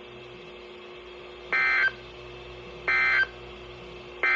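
NOAA Weather Radio EAS end-of-message signal: three short bursts of SAME digital data tones, about a second and a half apart, the first a little over a second in and the last near the end. It marks the end of the alert message.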